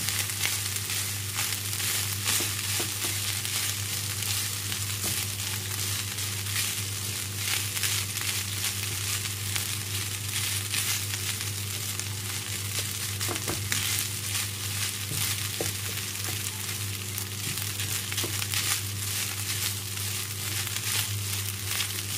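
Egg fried rice sizzling in a hot pan with soy sauce just stirred through. It is being stirred, with a few faint clicks and scrapes of the utensil against the pan, over a steady low hum.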